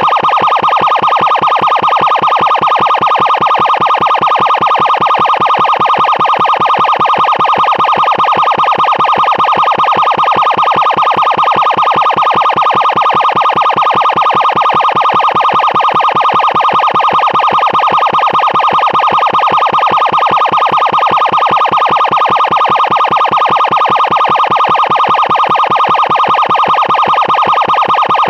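Emergency siren sounding loud and continuously at one steady pitch, with a rapid buzzing pulse and no rise or fall.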